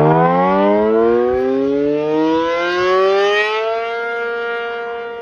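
ACA P50 electromechanical tornado siren winding up on its alert signal: its loud tone climbs steadily in pitch and settles into a steady held tone about four seconds in.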